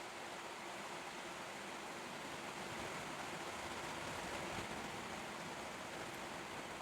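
Faint steady hiss of background noise with a low hum underneath; no music or voice.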